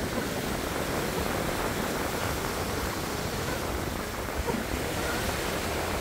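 Sea waves breaking and washing on the shore: a steady, even rush of surf.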